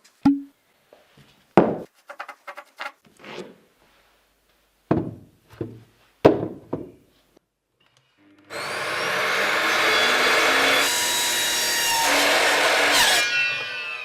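Several knocks of wood and tools being handled. About two-thirds of the way in, a power tool spins up and cuts into wood with a loud, steady noise, then winds down near the end.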